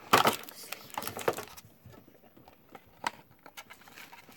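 Clear plastic card insert being worked out of a Pokémon tin: a dense run of crackling and rustling plastic for about the first second and a half, then a few separate sharp clicks.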